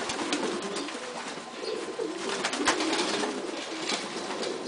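A flock of domestic pigeons cooing over and over, with the flap of wings and splashing of water as they bathe in a shallow tub.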